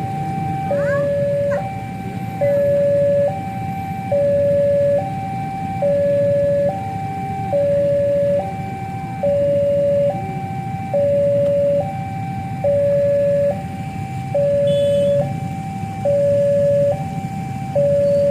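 Railway level-crossing warning alarm sounding a two-tone electronic signal, switching evenly between a higher and a lower note just under once a second. It warns that the crossing is closed and a train is approaching.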